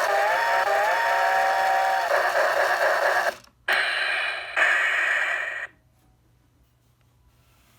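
Steam-locomotive model alarm clock sounding its steam-train alarm: a hissing steam sound with a whistle that rises a little and holds for about two seconds, then two more hissing stretches after a brief break. It cuts off suddenly about six seconds in.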